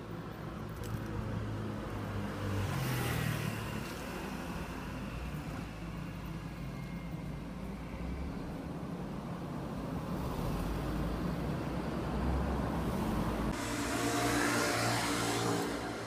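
Road traffic running by, with a vehicle passing about three seconds in and a louder one passing near the end, its engine note clear over the rumble.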